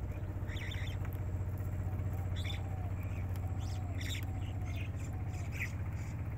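Steady low hum of a boat engine running on the river, with short bird chirps breaking in several times.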